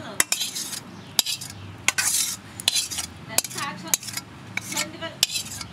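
Metal utensils clinking against metal cookware, about seven sharp ringing clinks roughly a second apart.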